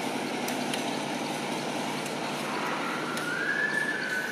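Steady motor vehicle noise, with a faint high whine that comes in about halfway through and holds.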